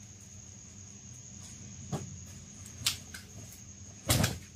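Quiet handling noises from a garment being picked up and shown: a couple of soft clicks and a short rustle near the end. Under them runs a faint steady high-pitched whine.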